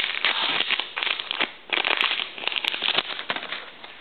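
Crinkling and crackling of a trading-card pack wrapper and cards being handled as a pack is opened, in irregular bursts with a brief lull about a second and a half in.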